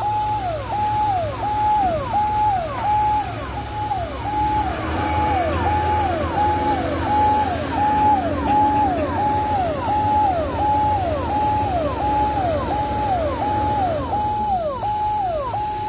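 Ambulance siren sounding continuously in a fast repeating cycle, a held high note that drops and sweeps back up about twice a second, over a low engine rumble.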